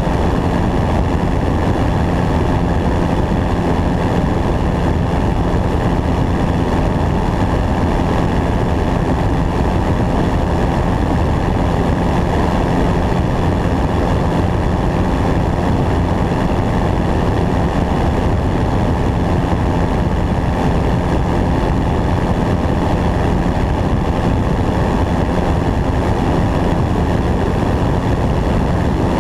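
Light aircraft's engine and propeller running steadily in flight, heard from a camera mounted on the wing, with wind rushing over the microphone.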